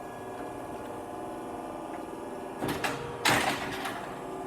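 Hydraulic bender running with a steady hum. About two and a half seconds in come a couple of sharp knocks, then a little after three seconds a louder clack with a hiss, as the machine starts a dry bend with no rod loaded.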